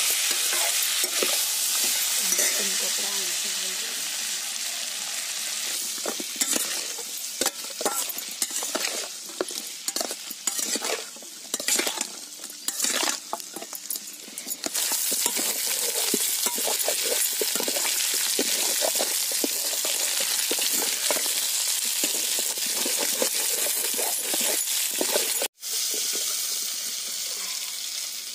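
Mutton pieces sizzling as they fry in a steel wok, with a flat metal spatula scraping and clacking against the pan as they are stirred. The spatula strokes come thickest in the middle, and the sound breaks off for an instant near the end.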